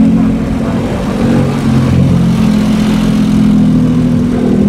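Lowered kei truck's small engine running as it rolls slowly past at low speed: a steady low drone that shifts a little in pitch.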